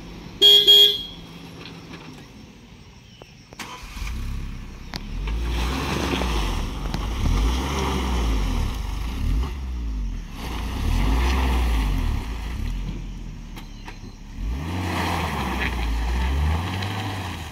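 SUV engine revving up and down in waves under load as it drives through deep, rutted mud, with a heavy low rumble. A brief loud beep about half a second in.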